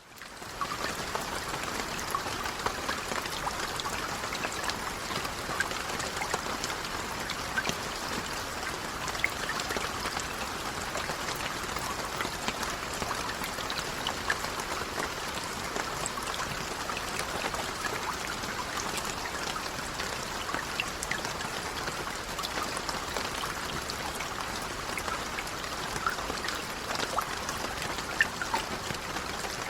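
Light rain falling steadily, a continuous patter with scattered sharper drop ticks.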